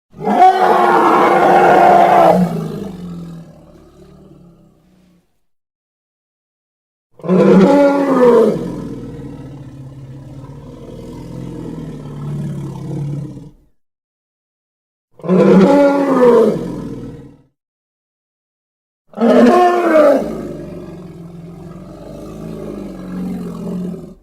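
Four separate dinosaur roar sound effects made for a triceratops, with silence between them. Each starts loud with a bending pitch and then fades. The second and last trail off in a long, lower rumbling tail.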